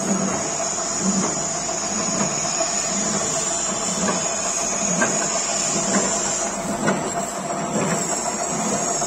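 Horizontal milling machine with a thin disc cutter slotting a steel rectangular tube: a steady hiss of the cut with a mid-pitched hum and a high whine over it. A low pulse repeats about once a second.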